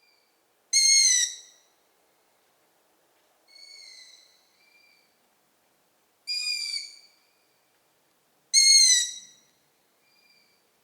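Young long-eared owls giving their high, squeaky begging calls, drawn-out whistled squeals well under a second each. Three loud calls a few seconds apart alternate with fainter ones, as from more than one bird.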